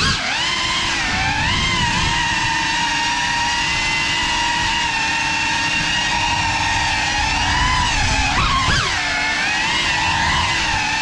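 GEPRC Cinelog35 cinewhoop's brushless motors whining in flight, a steady pitched hum that drops sharply and climbs back about eight and a half seconds in as the throttle is cut and reapplied.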